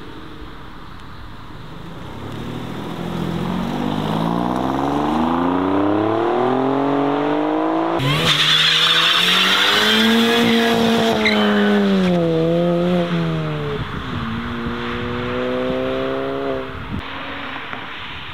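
A car engine revving hard, its pitch climbing steadily, then tyres squealing loudly with the engine held at high revs; the revs fall, rise once more and drop away near the end.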